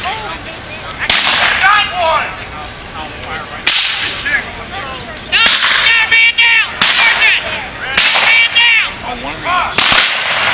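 Black-powder muskets firing blanks in a reenactment skirmish: about seven sharp, loud shots at irregular intervals a second or two apart, each with a short echoing tail.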